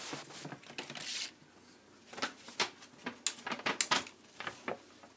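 A cat's paws and claws clicking and scraping on a dry bathtub, with small paper slips rustling. There is a soft rustle at first, then a run of quick clicks and scrapes from about two seconds in.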